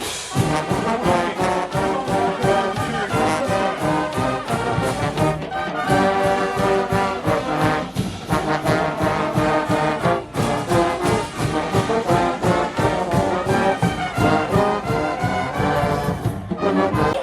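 Marching band playing: trombones and trumpets carry a tune over a steady drum beat.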